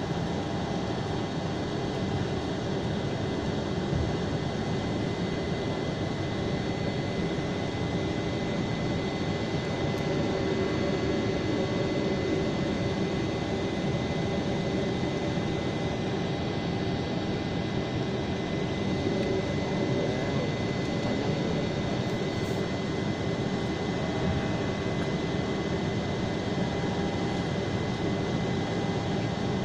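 Boeing 747 cabin noise during the climb after takeoff: a steady jet engine and airflow noise with a thin, steady high whine.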